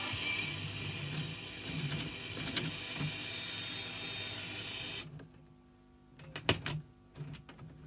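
Collins R-390 valve shortwave receiver being tuned: shortwave band hiss with faint steady whistles from its speaker and a few clicks as the kilocycle dial turns. About five seconds in the receiver audio cuts off suddenly, and a series of sharp mechanical clicks follows as the megacycle change knob is turned.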